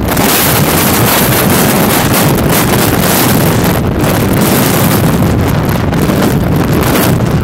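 Jet blast from a Delta Boeing 757's two engines at takeoff thrust, heard from behind the aircraft: loud, steady engine noise mixed with the blast buffeting the microphone like strong wind. It arrives abruptly and holds level.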